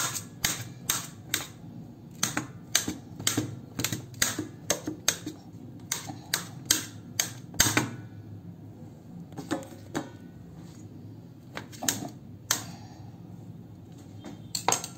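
Knife chopping boiled elephant foot yam and potato, the blade knocking sharply on the plate beneath about three times a second for the first eight seconds, then only a few scattered knocks.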